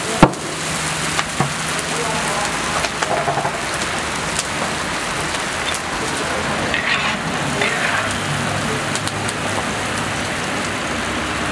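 Steady sizzling from hot oil frying in a large plov cauldron, with scattered crackles and one sharp pop just after the start.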